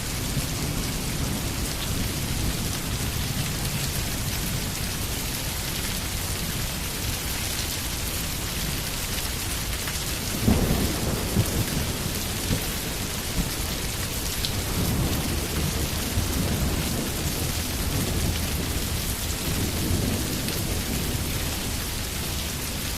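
Steady heavy rainfall with a low rumble of thunder underneath. About halfway through, a louder roll of thunder breaks in and rumbles on for a few seconds.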